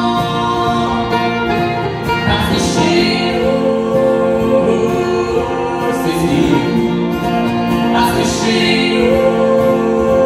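Live country-folk band: a woman singing, backed by strummed acoustic guitar and banjo.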